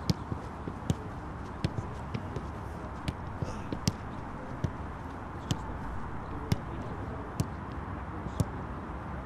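Footballs being kicked and passed: sharp, irregular thuds about once a second over steady low outdoor background noise.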